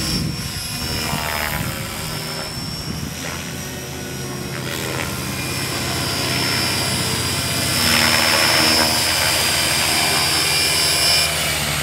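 GAUI Hurricane 550 RC helicopter in flight: the electric motor and drive give a steady high whine over the chop of the spinning rotor blades. It grows louder from about eight seconds in as the helicopter comes low and close, and the high whine drops away shortly before the end.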